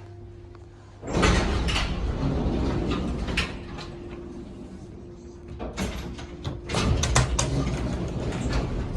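Lift doors sliding open about a second in, with knocks and clatter, then a run of sharp clacks in the second half.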